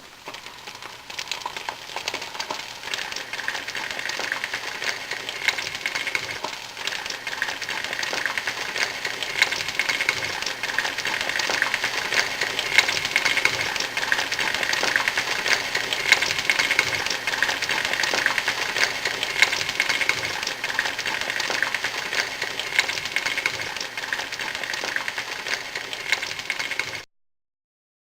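Dense, rapid clicking and crackling, steady and fairly loud, that cuts off suddenly near the end.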